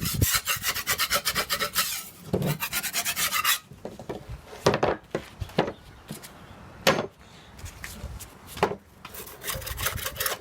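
Paint being scraped off derusted steel chair parts, in quick repeated rasping strokes for the first few seconds, then slower, separate scrapes, and quick strokes again near the end.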